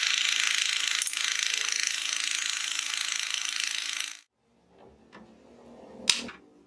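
Bench drill press running with a steady motor hum and a loud hiss as its twist bit bores through a plywood disc. It stops abruptly about four seconds in. Near the end, a single sharp knock comes as a plywood disc is set down on a wooden bench.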